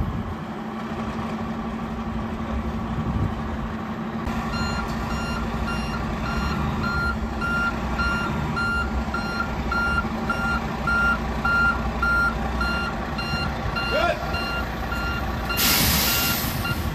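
Backup alarm on a 2011 American LaFrance Eagle tower ladder truck, starting about four seconds in and beeping steadily at a little under two beeps a second, over the hum of its running Detroit Diesel Series 60 engine. A short burst of air hiss comes near the end.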